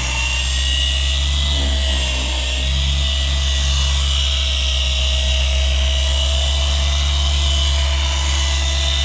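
Handheld electric polisher running steadily, its hard foam pad spinning on polishing paste over a scratched boat hatch window: a steady motor hum and whine.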